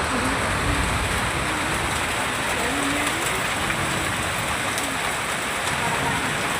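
Rain pouring down steadily in a storm, an even hiss of rain on surfaces.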